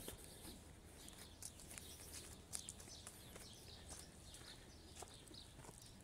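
Near silence outdoors, with faint, irregular footsteps and small scattered ticks over a low background hum.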